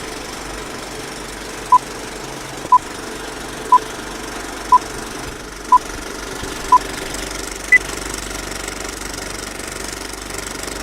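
A steady mechanical rattling hum, with a countdown of six short beeps one second apart at the same pitch, then a single higher beep.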